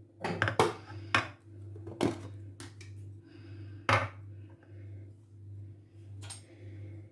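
A kitchen bowl and utensils knocking and clinking as they are handled, about seven sharp knocks at uneven intervals, the loudest about two and four seconds in, over a steady low hum.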